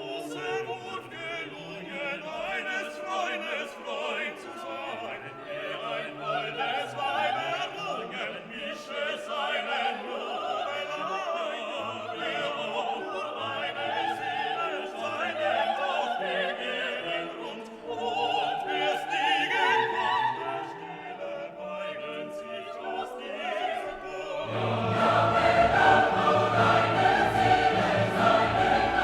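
Classical orchestral music with singing voices. It grows fuller and louder near the end.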